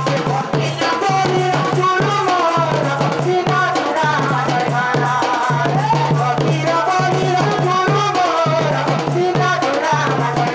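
Odia danda folk music: drums and rattling percussion under a wavering melody line, played loud and without a break.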